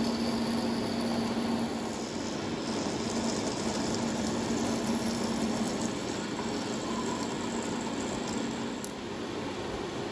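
Vertical milling machine running, its end mill cutting a metal disc held in a three-jaw chuck on a rotary table: a steady mechanical whir over a low hum.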